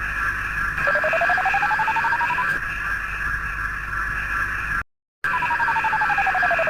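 Synthesized electronic sound effect: a steady high hum with a tone that rises in pitch over about a second and a half, a sudden short dropout to silence, then a matching tone falling back down.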